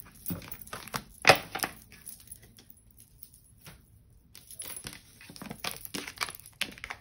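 Cards being handled on a table: gathered up and laid down, a run of light clicks and taps. The loudest click comes just over a second in, and there is a quieter spell in the middle.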